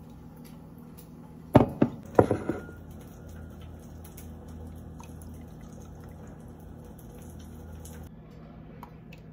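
A few sharp clinks of ice cubes dropping into a glass, then milk poured steadily over the ice for about five seconds, stopping abruptly.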